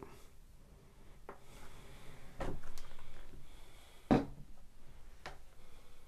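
Camera lenses being handled and set down on a wooden desk: a few light knocks and some rubbing, the sharpest knock about four seconds in.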